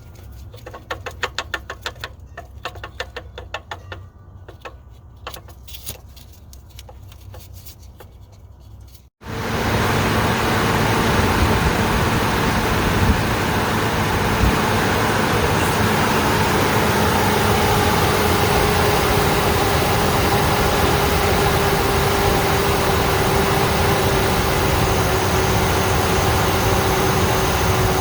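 Chevrolet Trailblazer / GMC Envoy 4.2 L inline-six engine running at idle with rapid, even ticking. About nine seconds in, the sound cuts to a much louder steady whirring with a whine that slowly sinks in pitch, from around the engine's water pump and cooling fan.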